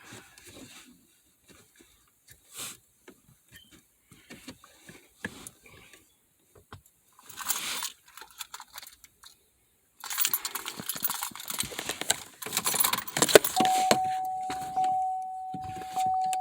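Small clicks and handling noises, then keys jangling and clattering for a few seconds. Then a car's warning chime starts and dings steadily about once a second.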